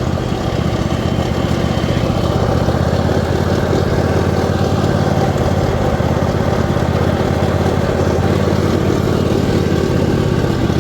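Riding mower's 22-horsepower engine running steadily at an even speed, now starting and running after its no-start fault.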